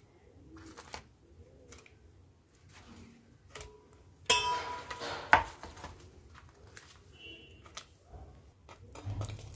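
Fried malpuas being dropped one by one into warm sugar syrup in a steel pot: soft, scattered taps and plops, with one louder clink of metal with a short ring a little over four seconds in.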